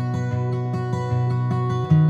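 Background music: guitar playing a steady rhythmic pattern of plucked notes.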